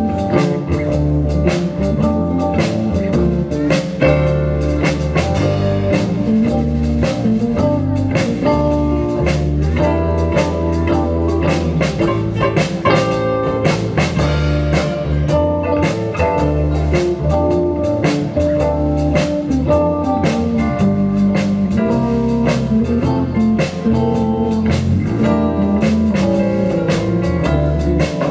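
Live band music through a PA: electric guitars over bass and a drum kit, playing steadily.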